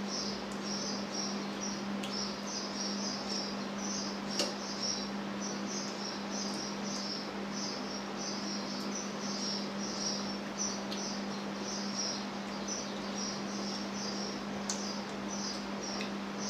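Rapid high-pitched chirping from a small animal, short chirps repeating about three times a second, over a steady low hum, with a few faint clicks.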